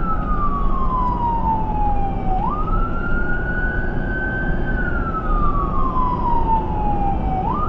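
Ambulance's electronic siren on a slow wail, sliding down in pitch, snapping sharply back up and climbing again, about one cycle every five seconds. Under it, the steady low rumble of the ambulance's engine and tyres on the road, heard from inside the cab.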